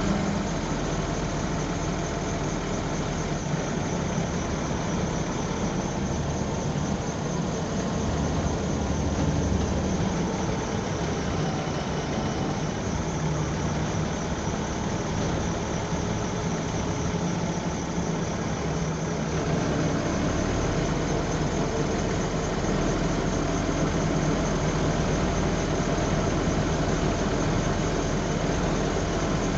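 A bus's diesel engine running steadily, heard from the back seat, with a low hum. About two-thirds of the way through, its note deepens and it gets a little louder.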